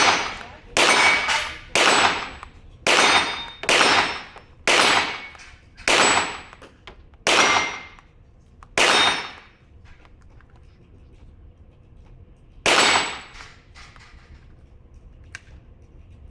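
Glock 17 9 mm pistol in a RONI carbine chassis firing single shots, about one a second, nine in a row, then one more after a pause of nearly four seconds. Each shot rings out in a long echo. A couple of faint clicks follow near the end.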